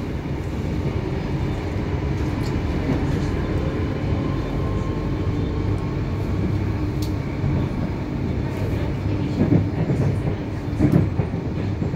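Cabin noise of an 8520 class DART electric multiple unit under way: a steady low rumble of wheels on the rails, with a few sharp clicks and two brief louder noises near the end.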